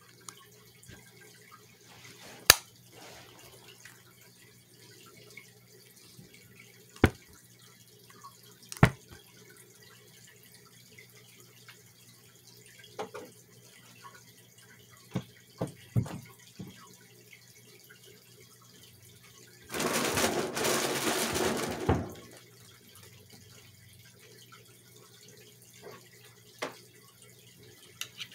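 Scattered single sharp clicks or knocks every few seconds over a low steady hum, with a rush of noise lasting about two seconds a little past the middle.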